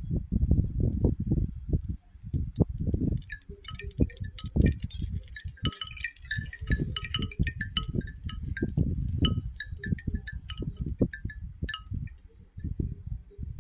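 A Nokia Asha 300 phone ringtone of tinkling wind-chime tones, starting about a second in and stopping near the end, over an irregular low thudding.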